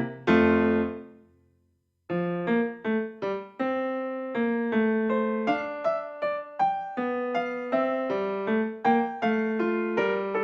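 Background piano music: a chord rings out and fades to a moment of silence, then a gentle piano tune starts again about two seconds in and plays on.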